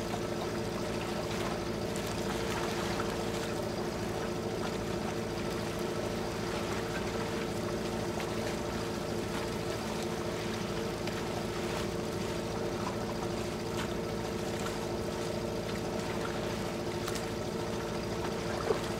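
Longtail boat engine running steadily at cruising speed, with water rushing along the hull.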